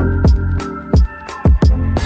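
Electronic background music: a deep kick drum hitting roughly every two-thirds of a second over sustained synth tones.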